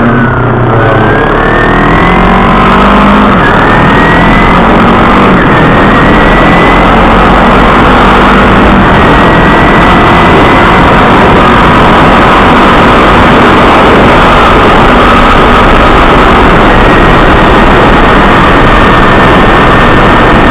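Kawasaki Ninja 250R's parallel-twin engine pulling up through a few gear changes in the first few seconds, its pitch rising and dropping back, then running at a steady cruise. Loud wind rush on the bike-mounted camera's microphone throughout.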